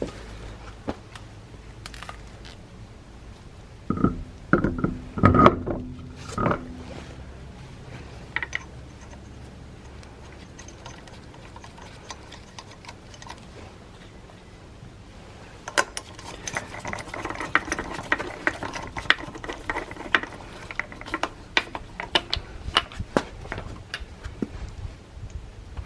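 Hand tools working on a car wheel during a tyre change: a few loud knocks and clatters about four to six seconds in, then, from about sixteen seconds in, a long run of quick ratcheting clicks.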